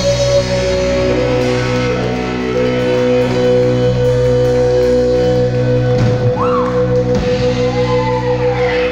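Live rock band holding out a song's ending: one long sustained electric guitar note, stepping down slightly in pitch just over a second in, over steady held keyboard and bass chords.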